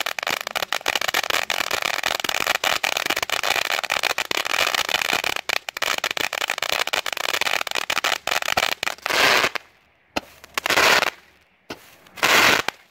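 Major League Pyro 'Wanna Play A Game' firework fountain spraying and crackling densely and steadily. Near the end the spray stops and it gives three short bursts of crackle about a second and a half apart: the fountain's crackling finale.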